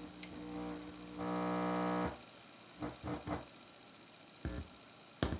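A low mains hum buzzing from a stereo system's speaker, a buzz with many overtones. It swells a little over a second in and cuts off about two seconds in. A few crackles and pops follow, the loudest near the end.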